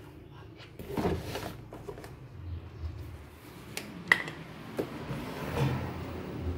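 Pliers and the metal and plastic parts of an air fryer being handled during a repair: scattered clicks, taps and scrapes, with the sharpest click about four seconds in.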